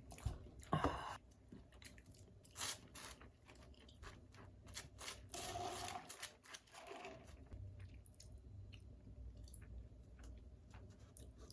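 Someone eating: soft, scattered crunches and chewing sounds.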